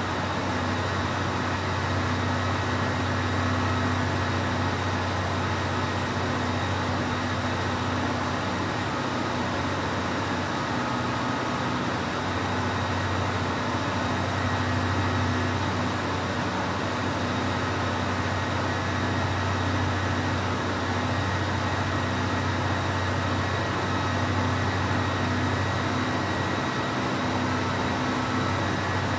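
Cadillac V8 idling steadily, a constant low engine drone with no revs or changes.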